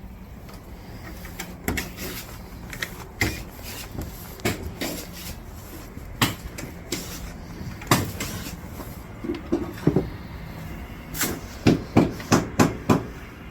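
Irregular sharp knocks and taps over a low steady background, ending in a run of about six quick knocks close together.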